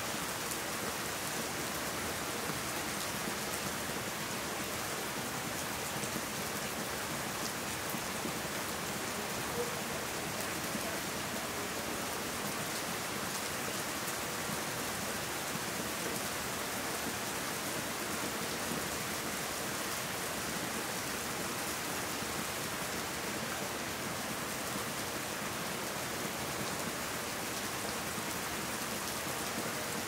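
Steady rain falling on garden plants and leaves: an even hiss made of countless fine drops, with no let-up or change in strength.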